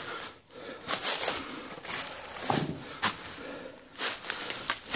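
Footsteps crunching and rustling through dry fallen leaves, in irregular steps.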